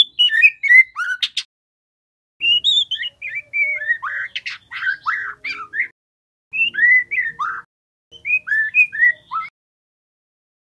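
Young white-rumped shama singing four short bursts of quick whistled notes that rise and fall, mixed with sharp chips, with short pauses between the bursts.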